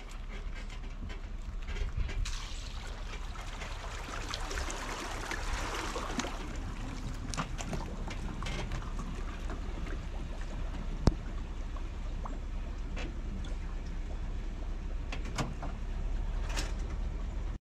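Water sloshing and lapping as a bass boat on its trailer is backed down the ramp into the lake, over a low steady rumble. A few faint clicks, with a sharper one near the middle.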